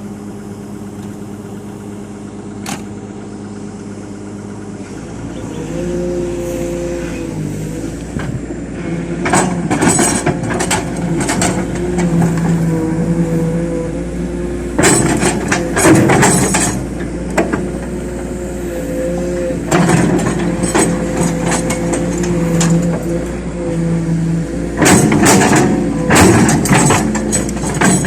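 Hydraulic excavator's diesel engine running, picking up to a louder, higher working speed about five seconds in, its note dipping and recovering now and then as it works under load. Several stretches of harsher clattering noise come over it as the machine works.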